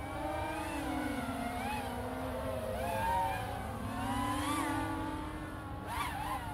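Propellers of two quadcopters in flight, an FPV drone and a Skydio 2, whining with a pitch that keeps rising and falling as their motors speed up and slow down.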